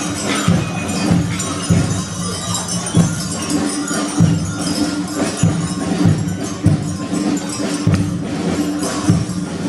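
Bavarian brass band playing a march, with low brass holding the tune over a steady drum beat of a bit under two strokes a second.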